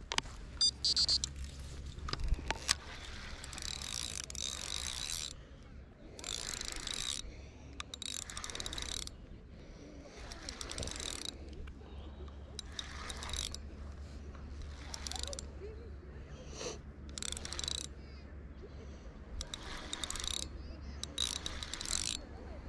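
Carp angler's spinning reel clicking and whirring in repeated spells of one to two seconds while a hooked carp is played in. An electronic bite alarm beeps briefly at the start, signalling the take.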